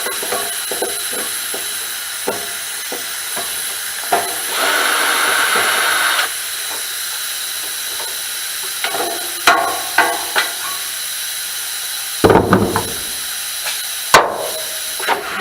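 Knocks and clatter from a dehumidifier's metal case and parts being pulled apart by hand, over a steady hiss. About five seconds in, a louder rushing hiss lasts about a second and a half, and the sharpest knocks come in the second half.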